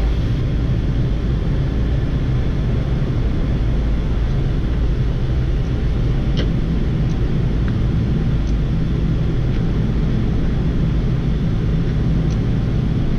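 Steady cockpit noise of a Boeing 787-8 on final approach with the landing gear down and flaps extended: an even low rumble and rush of airflow and engines, with a few faint clicks.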